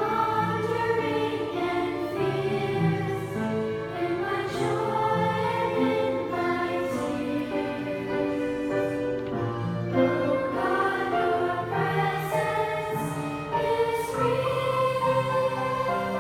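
Choral music: several voices singing held notes together over a classical-style accompaniment.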